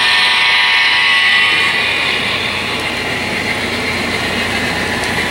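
Sound-equipped HO-scale model diesel locomotives running, their engine sound from the models' onboard speakers. Strong for the first second and a half, then dropping away as the locomotives move off.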